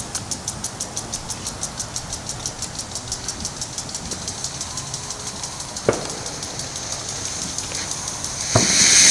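A fast, even, high-pitched ticking of about eight pulses a second, with a sharp knock about six seconds in. Near the end a Blue Stars firework fountain catches, and a loud hiss of spraying sparks starts up and keeps growing.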